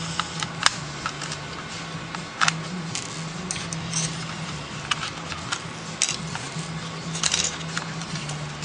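Scattered light clicks and scrapes of a screwdriver and fingers working at a ThinkPad T400s laptop's plastic underside, freeing the hard drive from its bay.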